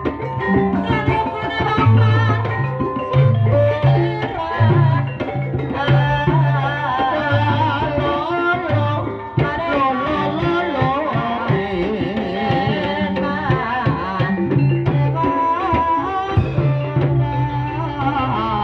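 Live Javanese gamelan music: kendang hand-drum patterns under bronze metallophones and gongs, with a singer's wavering voice over them.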